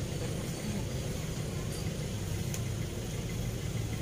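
Steady low rumble of road traffic crossing the concrete bridge overhead.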